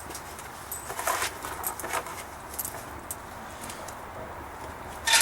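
Scattered light metallic clicks and rattles of nuts, bolts and washers being handled while fastening a bumper stinger, with a sharper clank at the very end.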